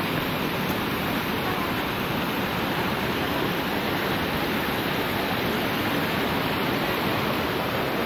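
Mountain stream rushing steadily close by, an even wash of water noise with no breaks.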